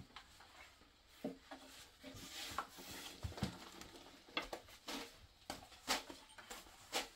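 Irregular light wooden knocks and taps of a thin rolling pin on a round wooden board as flatbread dough is rolled out thin and lifted onto the pin.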